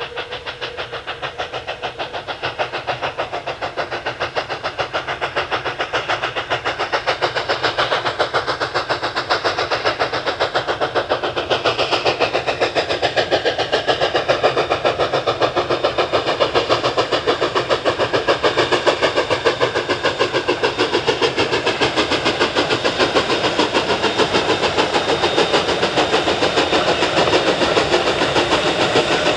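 Narrow-gauge 2-8-2 Mikado steam locomotive working hard, its exhaust beating in rapid, steady chuffs that grow steadily louder as it approaches.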